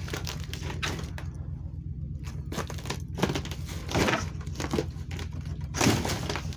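Wooden shack boards creaking, cracking and breaking as the building is pulled apart, in irregular cracks, the loudest about three, four and six seconds in. A vehicle engine runs steadily underneath.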